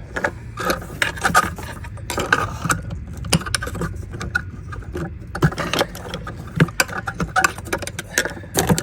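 Irregular clicking, rattling and scraping of hands working a hose clip and hose off a fitting under a car's hood, over a steady low rumble.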